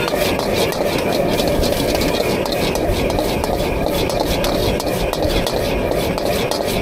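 Steady din of a busy open-air market: crowd bustle and indistinct voices over a low engine-like rumble.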